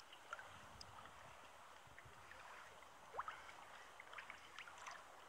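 Faint small waves lapping and splashing against a kayak's hull, with water trickling and dripping in many small splashes. A short rising squeak about three seconds in is the loudest moment.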